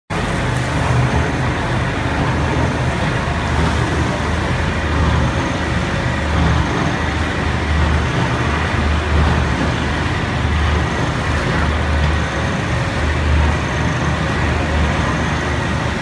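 Continuous charcoal carbonization furnace plant running: a steady, loud mechanical din with a low throb that swells and fades about once a second.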